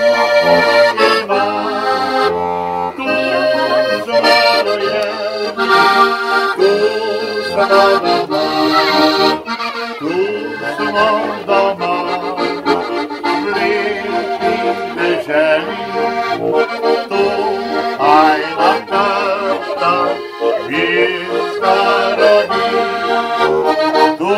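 Diatonic button accordion (Slovenian frajtonarica) playing a lively Slovenian folk tune, a quick-moving melody over bass notes.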